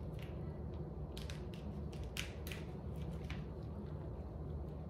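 Package of thin-sliced prosciutto being handled as the slices are peeled apart: scattered soft crinkles and crackles, about a dozen, over a low steady hum.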